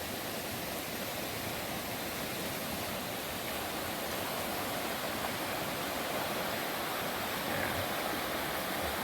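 A rain-swollen river rushing steadily over rocks and rapids, a constant even roar of water.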